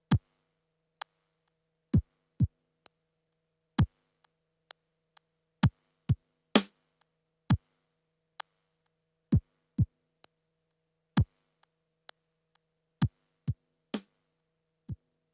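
Yamaha PTX8 drum module playing a sparse, slow sequenced pattern through an Akai compressor. Single deep drum hits that drop in pitch come one to two seconds apart, sometimes in quick pairs, with a few brighter, sharper hits among them.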